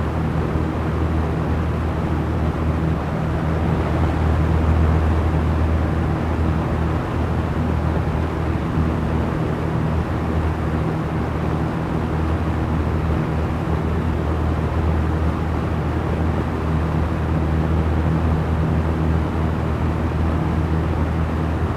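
Small electric fan running steadily: an even rush of moving air over a steady low motor hum.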